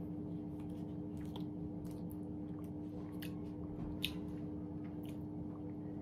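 Quiet mouth sounds of someone eating soft jelly: squishy chewing and small lip smacks and clicks, the sharpest about four seconds in, over a steady low hum.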